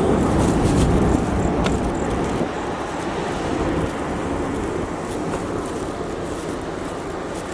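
Steady rumbling, rushing noise on the open top deck of the ferry Tsukushi as it gets under way: the ship's engines and wind. It is strongest in the first second or so, then eases.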